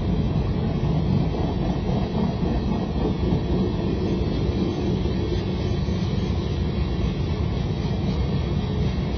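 Freight train cars (boxcars and tank cars) rolling past at steady speed: a continuous low rumble of steel wheels on rail.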